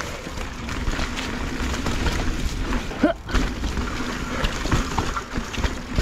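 Mountain bike riding fast down a rough dirt trail: a steady rumble of the tyres over dirt and rocks, with frequent knocks and rattles from the bike.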